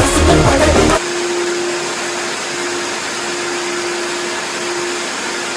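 60-litre wet and dry vacuum cleaner motor running steadily, with a constant hum over the rush of air. Background music cuts off about a second in.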